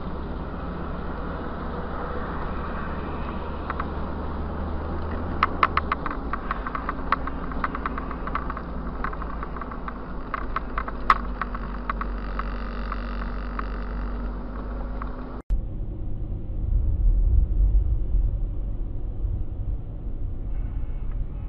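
Dashcam recording of a car driving: steady engine and road rumble heard from inside the cabin, with a run of sharp clicks and knocks in the middle. The sound drops out briefly and changes abruptly about two-thirds of the way through.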